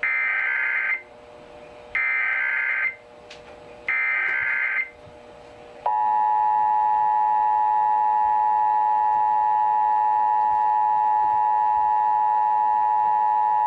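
Emergency Alert System test tones over a broadcast. First comes the digital header: three separate one-second bursts of warbling data tones about two seconds apart. About six seconds in, the steady two-tone EAS attention signal starts and holds.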